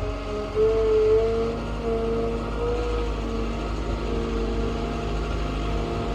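Caterpillar skid steer's diesel engine running steadily at raised throttle, which keeps the alternator charging.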